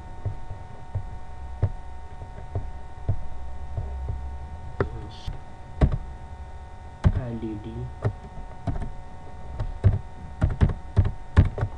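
Computer mouse clicks and keyboard keystrokes, with a quick run of several taps near the end, over a steady electrical hum.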